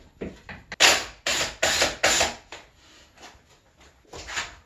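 A fastening tool working in short, loud, rattling bursts while the second level of a wooden cat tree is put on. There are about five bursts in quick succession in the first half, then two more near the end.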